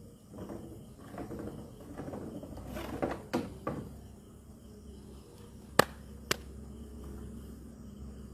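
Irregular rustling and scraping for the first few seconds, then two sharp clicks about half a second apart, the loudest sounds, over a faint steady hum.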